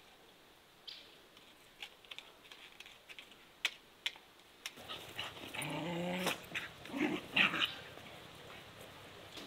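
Two small dogs play-fighting, making short pitched growls and whines from about halfway in. Before that, only a few faint scattered ticks.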